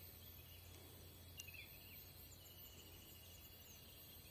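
Near silence: faint forest ambience, with a short bird call about a second and a half in and a faint, even insect trill.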